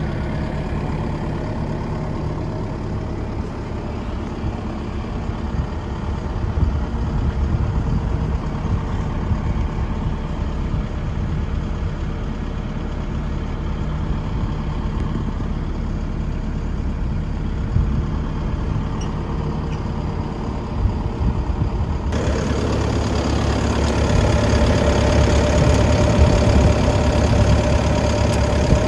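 Hitachi ZX135US-3 hydraulic excavator's diesel engine running steadily. About two-thirds of the way through the sound turns brighter and a little louder.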